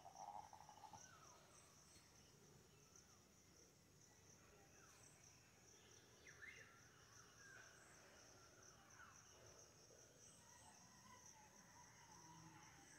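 Faint, steady high-pitched chorus of insects, with a few faint bird chirps in the middle and a short louder call right at the start.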